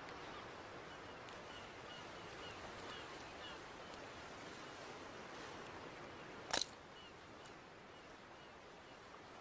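Steady beach ambience of surf and wind, with a run of faint, short, high chirps. A single sharp click about six and a half seconds in.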